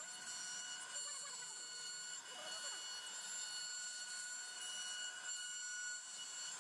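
CNC router spindle running with a steady high-pitched whine as its bit mills a pocket into a wooden door panel.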